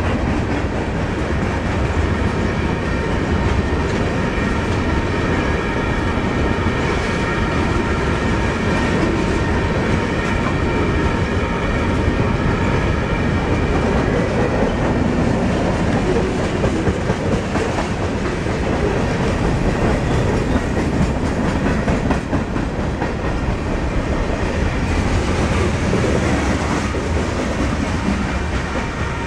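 Freight train cars rolling past: boxcars, covered hoppers and tank cars, giving a steady rumble of steel wheels on rail.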